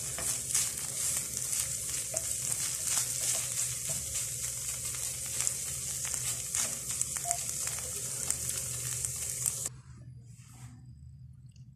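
Flaked tuna sizzling as it fries in a non-stick frying pan, stirred with a wooden spatula that scrapes and taps against the pan. The sizzle cuts off suddenly about ten seconds in.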